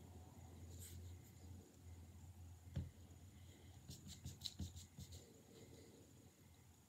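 Faint rubbing of hands moving close to the microphone, with a single soft knock about three seconds in and a quick run of small clicks about a second later.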